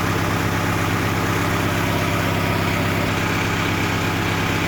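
Deutz 2.9-litre four-cylinder diesel engine idling steadily. It has a misfire on cylinder 3, low on power, which the mechanic traces to a faulty number-3 injector (fault code: injector current below normal or open circuit).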